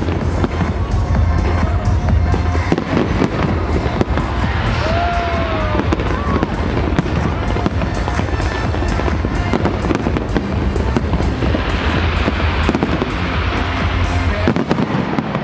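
Fireworks display going off continuously: dense crackling and popping of many bursts, over music with a steady low bass.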